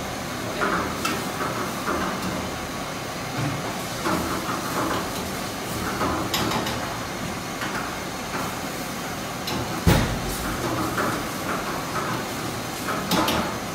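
Steady background hum of commercial-kitchen machinery, with one sharp knock about ten seconds in and a few faint clatters.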